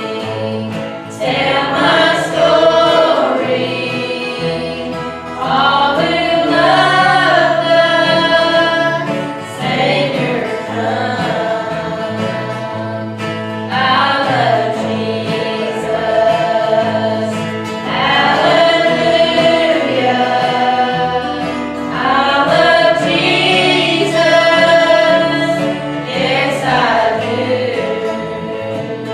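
A choir singing a gospel song with instrumental accompaniment, in phrases of about four seconds over a steady bass line.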